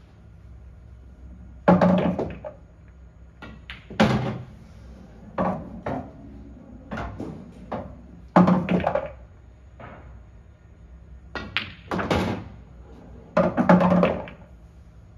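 Pool balls on an English pub-style pool table: sharp clacks of the cue tip on the cue ball and balls striking each other, with heavier thuds of potted balls dropping and rolling back through the table's ball return. About a dozen sudden knocks come in clusters, the loudest just under two seconds in, about eight and a half seconds in, and near the end.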